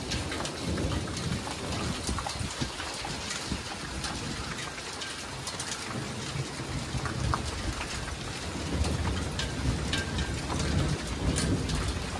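Rain pattering hard on surfaces, with many sharp ticks of individual drops, and a low thunder rumble swelling in the second half.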